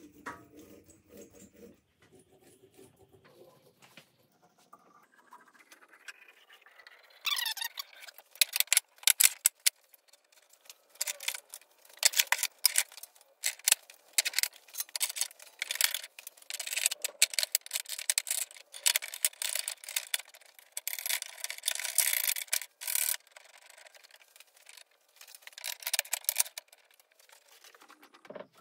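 Wooden boards and metal clamp bars being handled and set down on a workbench: a dense, irregular run of knocks, clicks and scrapes that starts several seconds in and stops shortly before the end.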